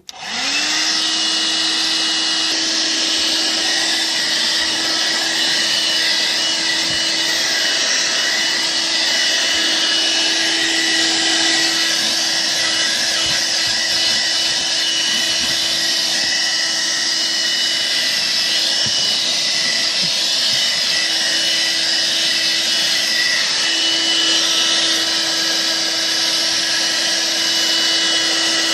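Armor All car vacuum switched on, spinning up within the first second and then running steadily: a motor hum under a loud rush of air, the hum wavering briefly a few times.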